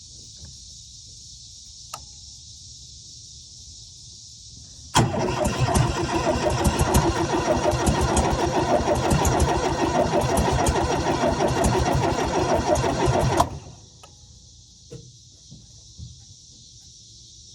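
1979 VW Westfalia's fuel-injected, air-cooled flat-four being cranked by the starter for about eight seconds, turning over with an even pulsing beat, then stopping without the engine catching: a no-start. A faint click comes about two seconds in, before the cranking.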